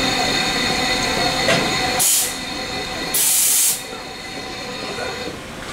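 Stopped JR 105 series electric train cars humming steadily during coupling, with two short blasts of compressed-air hiss, about two seconds in and about three seconds in, the second the longer. A faint click comes just before the first hiss, and the hum dies away near the end.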